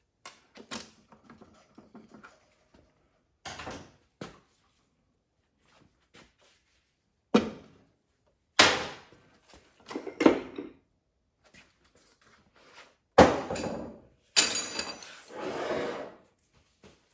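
Metal knocks and clunks as the front pump is worked loose and pulled out of a Turbo 400 transmission case, with a longer scraping sound near the end.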